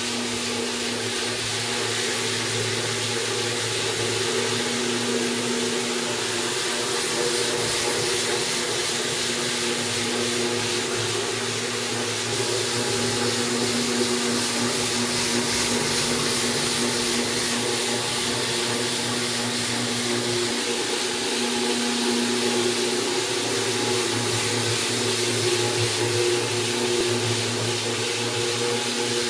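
Floor grinding machine running steadily as it wet-grinds a terrazzo floor through a water slurry: a constant motor hum under an even grinding hiss.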